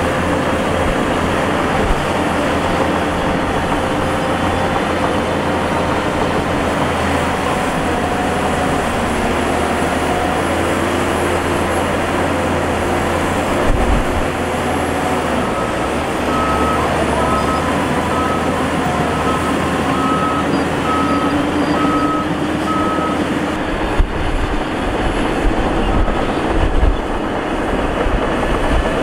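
Heavy diesel earthmoving machinery running steadily with a low rumble. A little past halfway a reversing alarm beeps about eight times, just under a second apart, and a couple of sharp knocks stand out.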